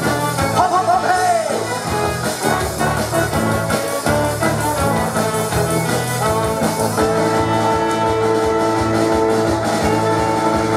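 Live brass band playing an instrumental passage: trumpets and trombones over a tuba bass line, with a bending brass fill about a second in and long held chords from about seven seconds.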